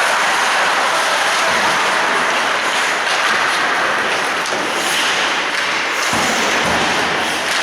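Ice hockey game in play in a rink: steady arena noise with a dull thump about six seconds in.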